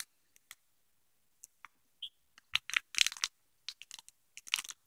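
Scattered soft crackles and crinkles of a foil-lined snack wrapper handled close to the microphone as an opened matcha brownie is held in it, thickest in the second half.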